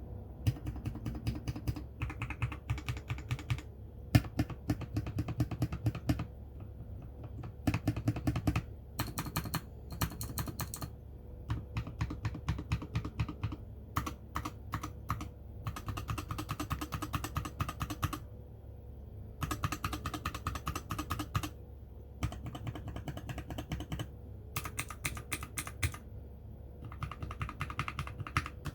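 Typing on a Vortex VX5 mechanical keyboard with lubed Outemu Brown tactile switches: rapid keystroke clicks in runs of a few seconds, broken by short pauses.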